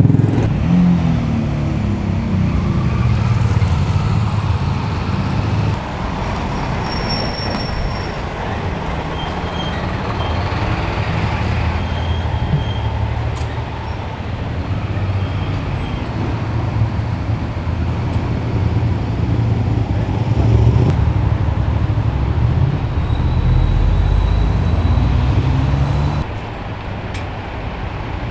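Street traffic: motor vehicle engines running and vehicles passing, with a steady low rumble. The level drops abruptly about six seconds in and again near the end.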